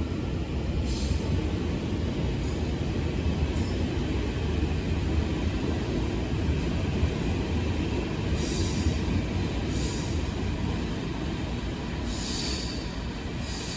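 Train running through an underground station platform: a steady low rumble, with short high-pitched wheel squeals several times, most of them in the second half.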